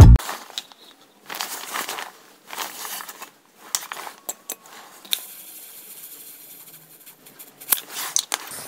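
40mm airsoft grenade shell being charged with airsoft gas: a series of short hisses as gas is pushed into the shell's valve, then a longer, steadier hiss about five seconds in, with a few sharp clicks near the end.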